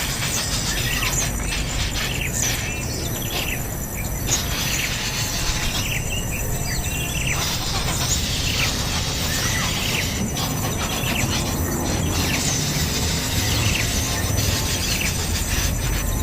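Many short bird chirps, some quick rising and falling, over a steady high insect drone and a constant low background noise.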